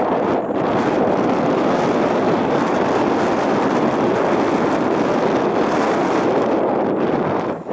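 Loud, steady wind rushing over the microphone of a camera carried on a bicycle coasting fast down a mountain road.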